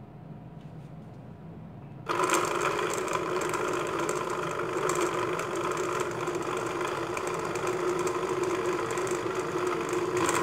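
Electric countertop blender switched on about two seconds in and running steadily at speed, liquidising cut fruit and water into juice.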